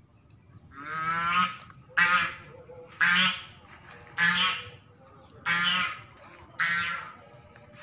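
Domestic waterfowl calling: six loud, hoarse, pitched calls, evenly spaced about once a second.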